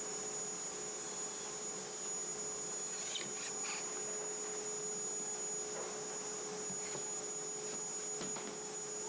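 A steady electrical-sounding hum with a few faint clicks or taps, clustered about three seconds in and again near the end.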